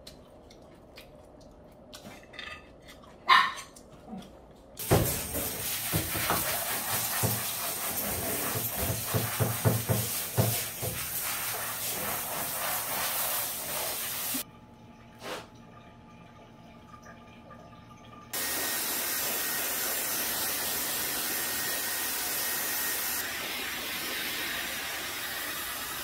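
A few faint clinks of chopsticks against a pot, then a handheld shower head spraying water onto a small dog in a bathtub for about ten seconds. After a short lull a hair dryer starts blowing steadily with a faint whine, dropping slightly in level a few seconds later.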